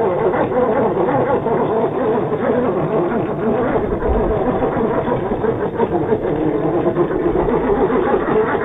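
WPL C24-1 RC crawler truck's small electric motor and gear drive running steadily under load, a continuous buzzing whine with scattered short clicks, as the truck works to climb rock on its stock tyres.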